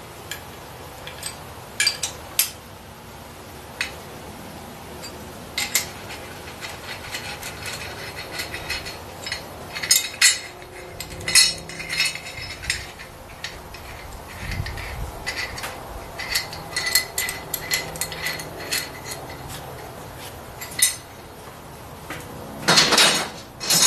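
Metal hand tools clinking and clattering against a cast-iron engine block as a piston stop is unbolted and lifted out of a cylinder bore, in scattered sharp clicks and small bunches of knocks, with a louder clatter of tools near the end.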